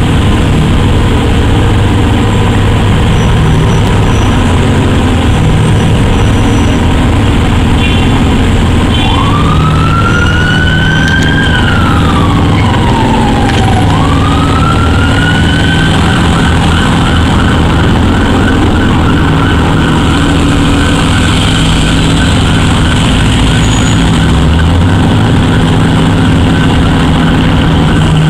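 Aston Martin Vanquish's V12 idling with a steady low rumble. About a third of the way in, an emergency siren wails up and down twice, then warbles at a steady pitch.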